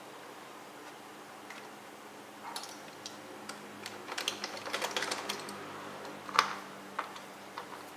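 Light, scattered plastic clicks and taps that begin a couple of seconds in, the loudest near the end: a Roomba's plastic bottom faceplate being handled and worked loose by hand after its screws were undone.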